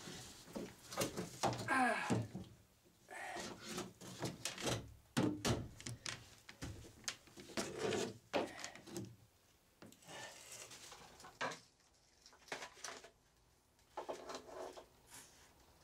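Irregular wooden knocks and rubbing, with a short creak near the start, as wooden stringer and mini-bulkhead pieces are handled and fitted together.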